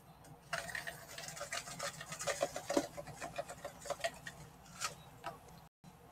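Himalayan salt being dispensed from a plastic container over a pan of vegetables: a run of quick, irregular clicks and rattles that stops near the end.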